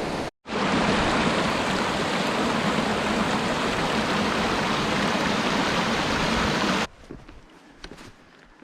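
Waterfall on a mountain stream pouring into a pool, a steady loud rush of water. It cuts off suddenly about seven seconds in, leaving a much quieter background with a few faint ticks.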